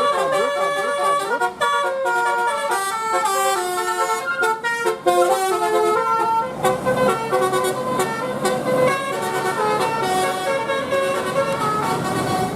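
A bus's multi-tone 'telolet' air horn playing a tune: held horn notes that step up and down in pitch one after another.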